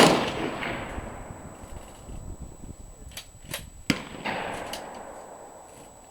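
Echoing tail of an 8mm rifle shot fading away, then three sharp clicks about three seconds in, and another, quieter gunshot echoing off just after.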